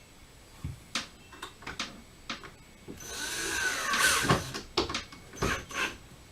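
Power drill working the screws of a cabinet door's hinges: a few knocks and clicks, then the drill runs for about a second and a half, its whine rising and falling with the trigger, and a couple more knocks near the end.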